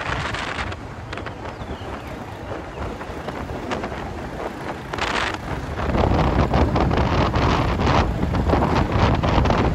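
Wind buffeting the microphone, a steady rushing that grows stronger and heavier about six seconds in.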